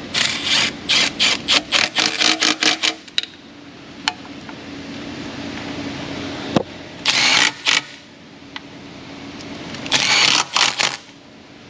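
Hand ratchet clicking as oil pan bolts are run down through a universal socket, about four clicks a second for the first three seconds. Two short bursts of faster ratcheting come later. The bolts are being snugged to mate the pan to its fresh sealant, not yet at final torque.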